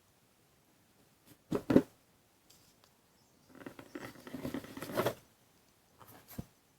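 Packaging being handled during an unboxing: two quick knocks, then about a second and a half of rustling, and another knock near the end.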